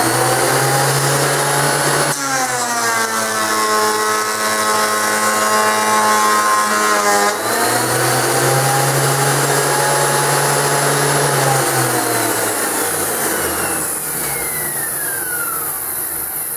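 Metabo DH330 thickness planer running. About two seconds in, a board feeds through and the motor pitch drops under the cut for about five seconds, then rises back to free running. Near the end the motor winds down with a falling whine. The repaired planer, now fitted with a metal infeed roller, pulls the board through without slipping.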